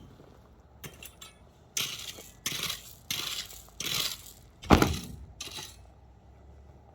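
Iron rake scraping and dragging through stony dirt and gravel in a run of quick gritty strokes, with one heavier thump of the rake striking the ground about two thirds of the way through.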